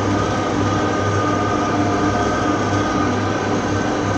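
Tractor engine running steadily under load while pulling a cultivator across a field: a continuous drone with a few steady whining tones over it.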